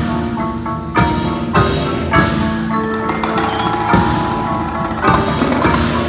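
Indoor winter percussion ensemble playing: marimbas and other mallet keyboards sound pitched notes over held tones, while the drumline adds sharp, loud hits several times.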